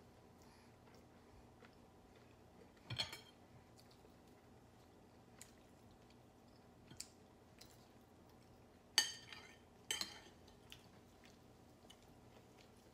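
Metal cutlery clinking against ceramic plates and bowls while food is served at the table: a handful of sharp, ringing clinks, the loudest two about a second apart past the middle, over a quiet room.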